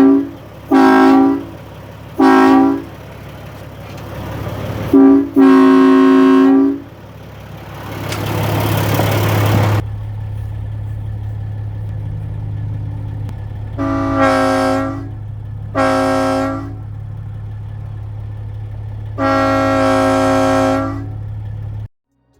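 Truck-mounted Air Horns of Texas train-style air horn, worked by a lever air valve, blown in about eight loud blasts of a multi-note chord: several short toots, then longer ones, the last lasting about two seconds. A steady low engine hum runs beneath, with a rising hiss about eight seconds in.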